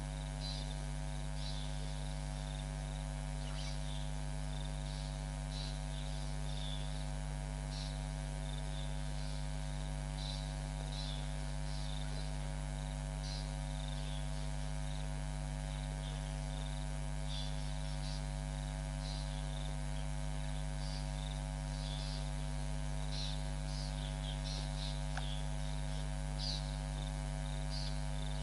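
Steady electrical mains hum, made of several constant tones, with short high chirps scattered irregularly a second or two apart over it.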